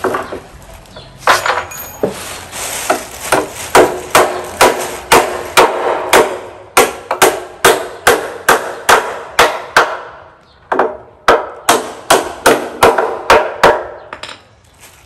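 Hammer driving nails into an old wooden board, with quick, even blows about two to three a second and a short pause about ten seconds in before the blows resume.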